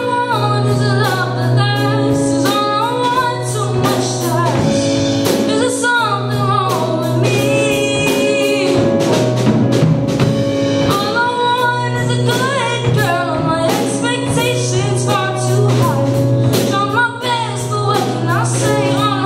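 Live band performing a song: a vocalist singing a melody over electric keyboard chords, with a drum kit keeping the beat and cymbals crashing, played through a PA system.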